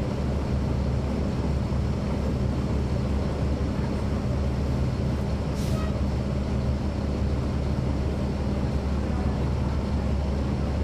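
Caterpillar C13 ACERT diesel engine of a NABI 40-SFW transit bus running steadily, heard from inside the bus, with a brief hiss about halfway through.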